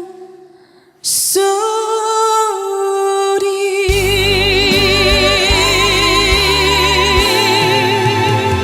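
Closing of a Korean trot song: after a brief dip, the band strikes in about a second in and a female voice holds a long final note, with bass and full accompaniment swelling in about four seconds in.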